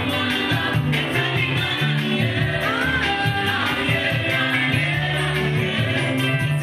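Gospel-style song performed live: several women's voices singing together over a band with keyboard and bass.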